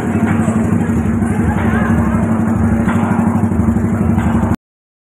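Motorcycle engine running steadily with a dense, even rumble, crowd voices faint behind it. The sound cuts off abruptly about four and a half seconds in.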